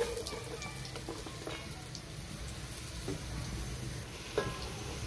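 Sliced onions sizzling in hot oil in a pot just after being dropped in, a steady hiss with scattered crackles. A single short knock sounds about four seconds in.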